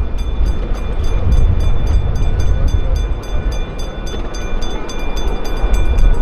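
A ride-on miniature train running along its track, heard from aboard: a heavy low rumble with a rapid, even clicking of the wheels at about four clicks a second.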